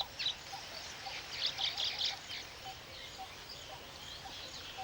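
Weaver birds chattering: quick clusters of short, high chirps, busiest about one and a half to two seconds in.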